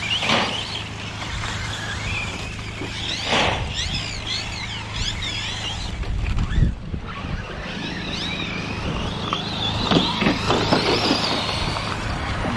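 Electric RC short-course trucks racing: their brushless motors whine up and down in pitch as they accelerate and brake. Several whines overlap, most thickly a few seconds in and again near the end, over a steady low hum, with a few short knocks.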